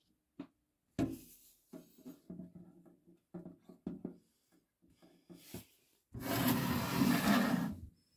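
Handling noise: a sharp knock about a second in, then scattered irregular knocks and rubbing, and a loud rubbing rustle lasting about two seconds near the end.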